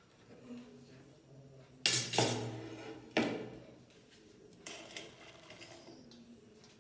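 A plate knocking against a stainless-steel mixing bowl while food is scraped and tipped into it: three loud clanks with a metallic ring, about two to three seconds in, then lighter clinks and rustling as chopped cabbage goes into the bowl.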